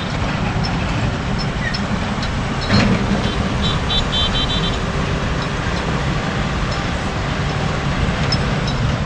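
Road traffic running past on a highway: a steady rumble of vehicle engines and tyres, with a brief louder noise about three seconds in.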